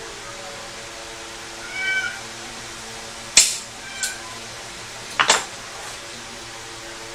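A cat meows once about two seconds in and gives a shorter call about four seconds in. Sharp clicks or knocks come about three and a half seconds in (the loudest sound) and again as a quick pair about five seconds in, over a steady background hum.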